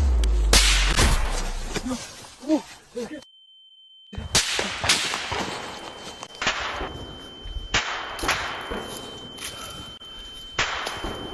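Battle sound effects: a deep boom at the start, then, after a brief drop-out, a string of sharp bangs about once a second over a steady high-pitched ringing tone.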